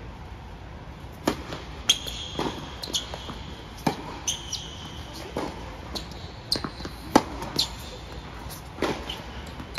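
Tennis rally on an indoor hard court: sharp pops of racket strings striking the ball and the ball bouncing, about a dozen in all, the loudest about seven seconds in. Short high squeaks of tennis shoes on the court come between the hits.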